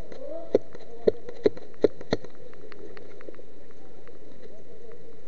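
Airsoft gun fired in single shots: five loud snaps in the first two seconds, then several much fainter clicks.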